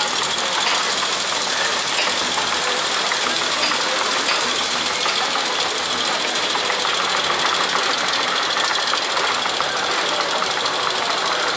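Steady mechanical running noise with a fine rattle, like an engine running, from the fairground ride machinery around a portable roller coaster.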